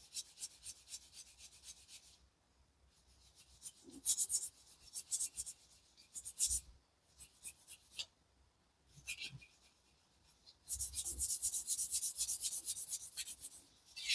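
A small clear plastic model windscreen rubbed back and forth on the finest side of a wet polishing block, lubricated with soapy water: quick, even scratchy strokes in three spells with short pauses between them.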